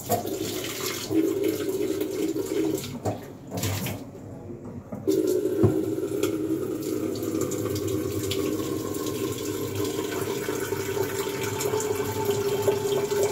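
Tap water running into an electric kettle as it is filled. The flow stops about three seconds in, with a few small knocks, starts again about five seconds in and then runs steadily.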